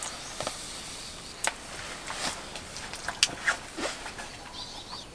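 Faint, scattered clicks and soft taps as a small dog is hand-fed: light mouth and handling noises.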